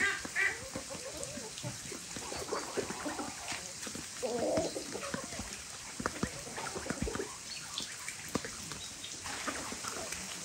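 Chickens feeding in a flock with ducks, giving scattered soft clucks and calls, over a steady hiss of rain.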